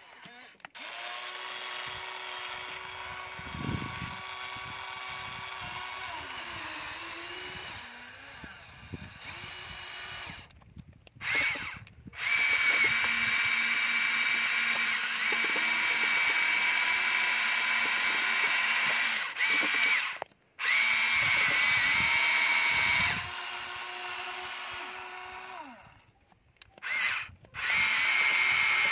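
Whine of the small electric gear motors in a Huina remote-control toy excavator, starting and stopping as the boom, arm and bucket move. The pitch shifts with each movement, there are several short pauses, and the motors get louder about halfway through.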